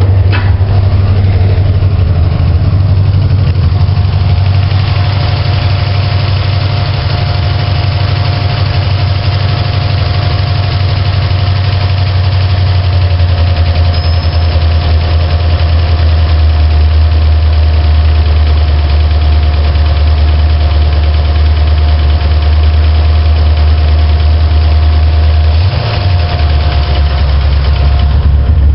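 Ford 460 big-block V8 idling fast on a large vacuum leak from the disconnected PCV hose at the back of the carburetor, while the idle screw is turned down. The engine note shifts about four seconds from the end as the idle comes down a little. A thin steady whistle runs through most of it.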